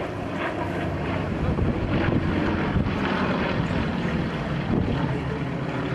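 Two propeller aerobatic planes flying a display in formation, their engines droning steadily overhead, with wind buffeting the microphone.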